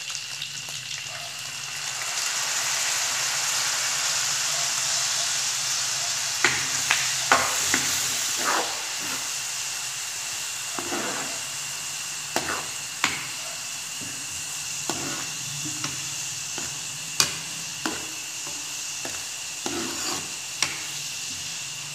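Pork and green chillies sizzling in hot oil in a frying pan. The sizzle swells about two seconds in as fish sauce goes in, and a metal ladle scrapes and knocks against the pan as it stirs from about six seconds on.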